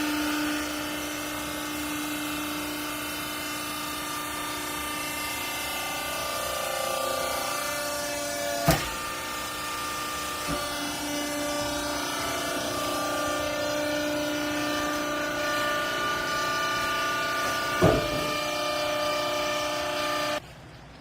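Hydraulic vertical baler for used clothes running: a steady motor-and-pump whine made of several tones that shift in pitch as it works, with two sharp knocks about nine seconds apart. The whine cuts off suddenly near the end.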